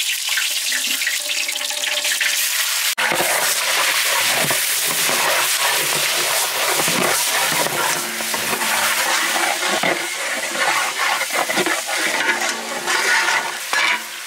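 Sliced onions sizzling steadily in hot oil in a large aluminium biryani pot, stirred with a long slotted ladle. The sizzle cuts out for an instant about three seconds in and is louder afterwards.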